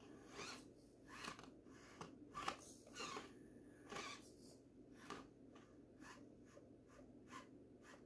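Axial SCX24 Deadbolt mini RC crawler's tyres and chassis scraping and scrabbling on stone blocks: short, irregular scratchy bursts with a sharp click about two and a half seconds in, over a faint steady hum.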